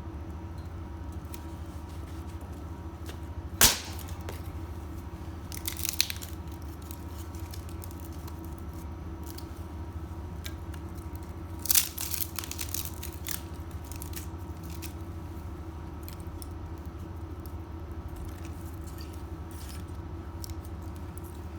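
Wood fire crackling, with scattered snaps, one sharp pop about four seconds in, and louder bursts of crackling around six and twelve seconds in.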